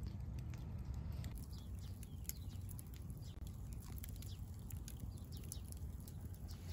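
Wood campfire burning, with scattered small crackles and pops over a steady low rumble.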